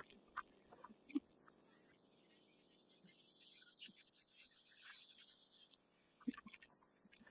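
Insects trilling steadily at a high pitch in savanna grassland, with scattered faint clicks and taps. A soft hiss swells through the middle and cuts off abruptly about six seconds in.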